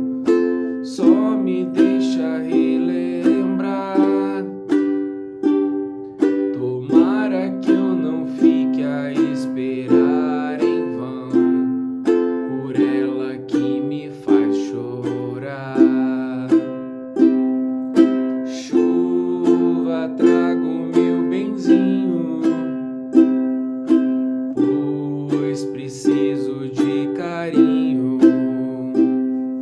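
Ukulele strummed in a steady, even rhythm, playing an instrumental passage of the song.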